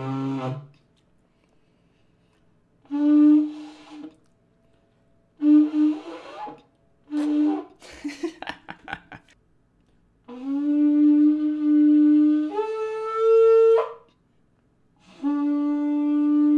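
Yemenite shofar, a long spiral kudu horn, blown in a series of blasts: three short ones, a sputtering crackle, then two long held notes, the first jumping up to a higher pitch partway through. The player is still learning and calls the horn not easy to play.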